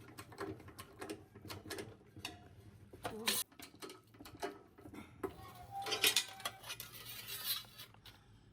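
Irregular light metallic clinks and knocks, with a short hissing noise a little before the end.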